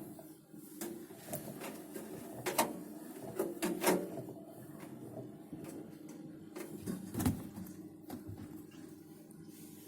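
A new Bosch Series 6 washing machine being handled by hand: a handful of sharp clicks and knocks, the loudest about a third of the way in and again near seven seconds, over a steady low hum.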